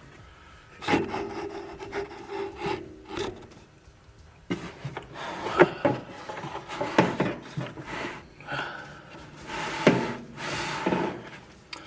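A hard plastic socket-set case being opened and handled: the plastic rubs and scrapes, with scattered clicks and knocks.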